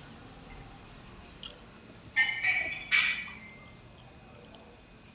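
Two ringing clinks of tableware, about a second apart, over faint eating sounds.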